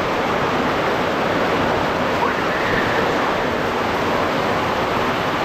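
Heavy tropical rain pouring down in a steady, even rush.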